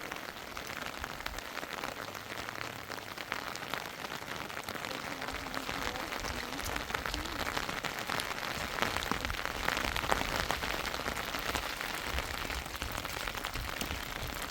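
Rain falling steadily, a dense patter of drops that grows a little louder in the second half.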